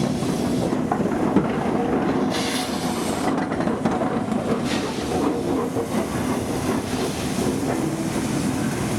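Railway train running at close range, wheels clattering on the rails, with a short hiss about two and a half seconds in.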